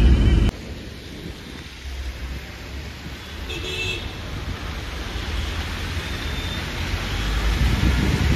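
Low road rumble from inside a moving vehicle cuts off suddenly about half a second in. A steady hiss of rain and distant traffic takes its place, with a brief horn toot about three and a half seconds in.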